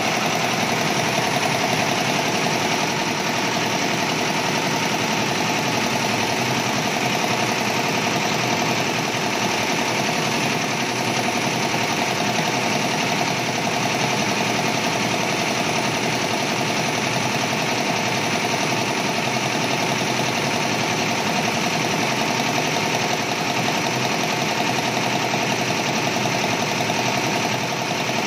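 Yonthin multi-head computerized embroidery machine stitching at speed: a steady, rapid mechanical clatter of the needle bar working through the fabric.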